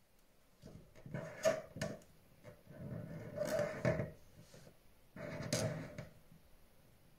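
Felt-tip pen drawing on paper laid on a wooden table: scratchy strokes in two spells, with a few sharp clicks in the first.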